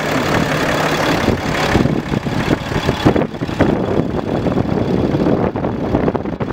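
Ram 3500's 6.7-litre Cummins turbo diesel idling, with an uneven, gusty rush over it.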